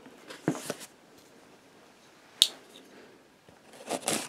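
A cardboard shipping box being handled and opened with a utility knife. Brief rustles come early on, a single sharp click about halfway through, and the blade scrapes at the packing tape near the end.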